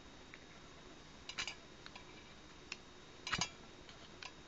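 Victorinox Farmer pocket knife scraped against a ferro rod to throw sparks: several short, sharp metal-on-metal scrapes, the loudest a little over three seconds in.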